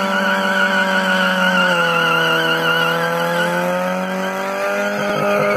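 A car engine held steadily at high revs as the car drifts sideways on a wet surface, its pitch sagging a little about two seconds in and climbing back. A wavering squeal comes from the spinning tyres.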